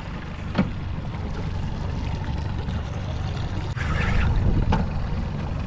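Boat engine running low and steady at trolling speed, with water sloshing and trickling along the hull. Two sharp knocks, and a brief louder rush of water noise about four seconds in.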